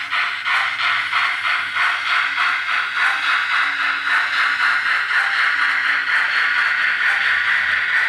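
Sound-decoder steam exhaust of a Hornby model Lord Nelson class 4-6-0, played through the model's small 28 mm speaker: a recording of the preserved Lord Nelson beating eight times per wheel revolution. The chuffs start at about four a second and quicken until they blur into a steady hiss about three seconds in.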